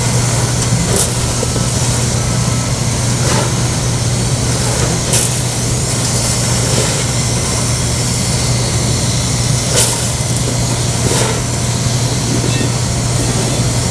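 Hand-held hot-air plastic welder running steadily, its blower giving a constant hiss over a low hum, while it heats the lap seam of a PVC/TPO membrane patch. A few short clicks sound now and then.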